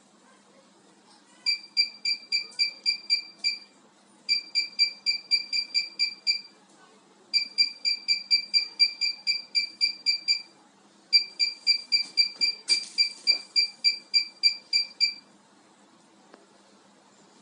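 Electric fireplace control beeping in four runs of short, evenly spaced high beeps, about four a second, with a sharp click during the last run.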